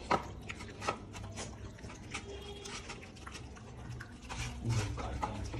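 A puppy eating rice and dog food from a glass bowl: wet chewing and lapping with many quick clicks and smacks.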